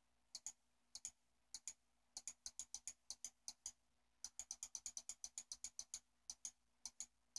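Faint computer mouse button clicking repeatedly, each click a quick press-and-release pair. Single clicks about every half second at first, then quicker runs of several clicks a second with a short break partway through.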